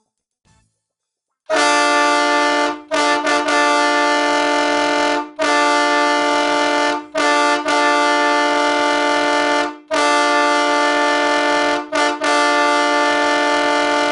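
Wolo Siberian Express three-trumpet train air horn sounding a steady multi-note chord. After about a second and a half of silence it gives a series of long blasts of one to two seconds or more, separated by brief breaks, with a couple of quick toots between them. It is very loud.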